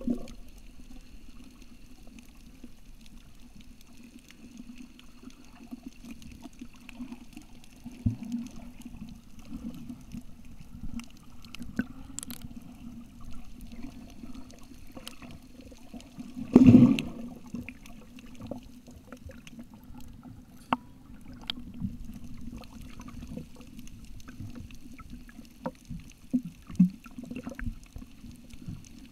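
Underwater ambience heard through a camcorder's waterproof case: a steady, muffled low rumble with scattered small clicks and crackles. One loud muffled thump about 17 seconds in.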